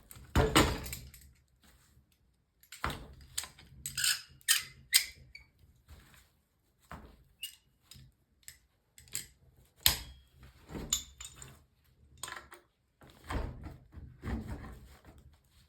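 A metal wrench clinking and knocking against a threaded brass pipe fitting as it is fitted and worked: an irregular string of sharp clicks and knocks, some with a brief metallic ring.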